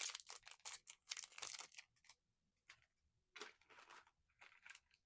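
Faint plastic packaging crinkling and rustling in short crackly bursts as it is handled and unwrapped, in two bouts with a pause between them.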